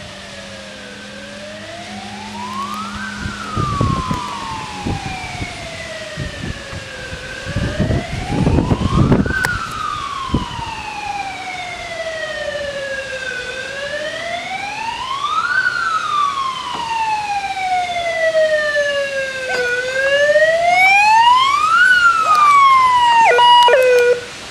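Fire engine siren wailing in slow rises and falls, about one cycle every six seconds, growing louder as the truck approaches. A few low rumbling thumps come around four and nine seconds in, and near the end the wail breaks into short stepped tones and cuts off.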